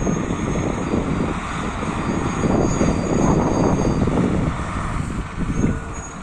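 SM42 diesel shunting locomotive's engine running under load as it hauls container wagons past, a deep pulsing rumble that swells in the middle and eases near the end. A thin high whine sits over it from about a second and a half to four seconds in.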